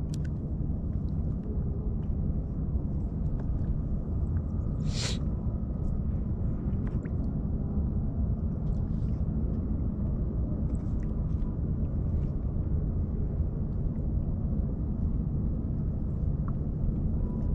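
Wind buffeting the microphone outdoors, a steady low rumble, with a short burst of hiss about five seconds in.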